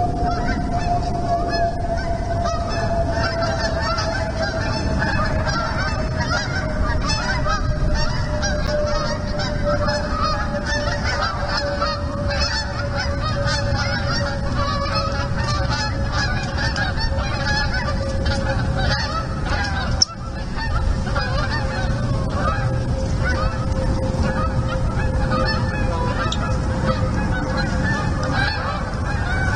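A flock of geese honking, many overlapping calls going on continuously. Under them a steady hum slowly falls in pitch, and there is a single sharp click about two-thirds of the way through.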